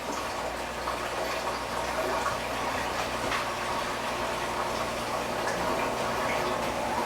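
Front-load washing machine on its spin cycle, with water rushing and sloshing inside over a steady low hum and a few faint clicks, growing slightly louder.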